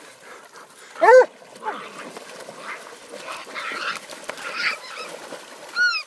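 Coon dog barking once, loud, about a second in, followed by a stretch of scuffling and rustling, with a short high-pitched cry near the end.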